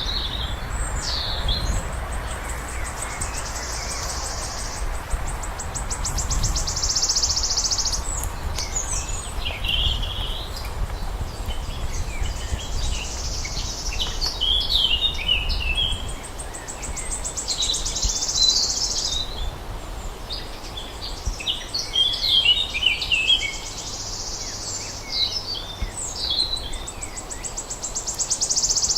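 Songbirds singing: one bird repeats a high, buzzy trill of two to three seconds every few seconds, while other birds chirp between the trills. A low rumble underlies the first half.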